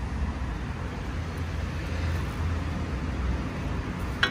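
Steady low background rumble with no distinct events, and one short metallic click of the ratchet and socket on a manifold bolt near the end.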